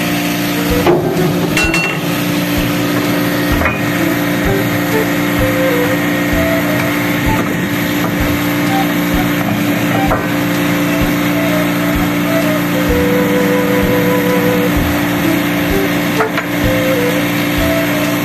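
Steady drone of running ship's machinery, an even hum with several fixed tones. A few sharp knocks cut through it, about a second in and again near the end.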